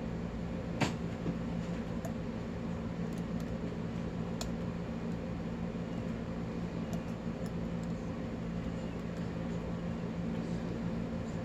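Light metallic clicks of a steel lock pick working the pins of an Abus-made Craftsman padlock, the sharpest about a second in and another near the middle, over a steady low hum.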